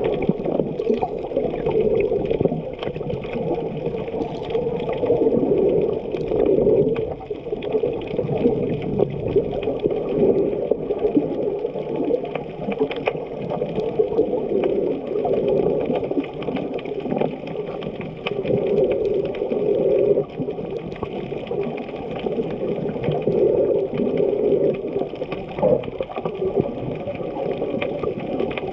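Muffled sloshing and rushing of water heard underwater while snorkeling, swelling and fading every few seconds, with scattered small clicks.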